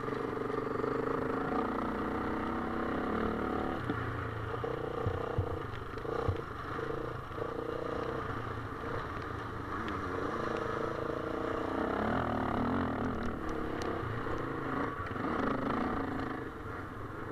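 Motocross dirt bike engine running hard at racing speed, its note rising and falling with throttle and gear changes.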